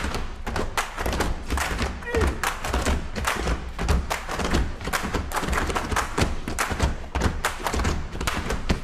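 Many children walking and stamping on a classroom floor, a dense, irregular run of thumps and taps.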